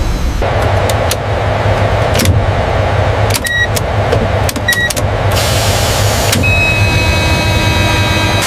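Steady mechanical motor hum with abrupt changes in the sound over it, two short high tones about a second and a half apart midway, and a steady high whine joining in about six and a half seconds in.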